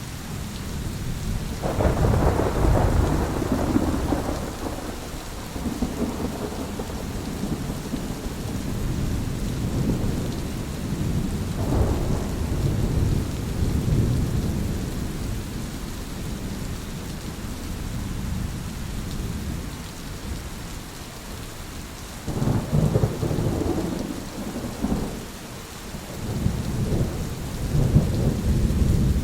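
Thunderstorm: steady rain with rolling thunder, a long rumble building about two seconds in, another around the middle, and sharper cracks and rumbles near the end.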